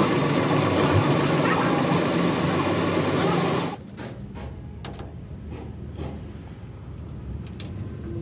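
Loud machining noise from a power tool or machine working metal, with a fast even rhythm; it cuts off suddenly about four seconds in. A few short metal clinks and knocks follow.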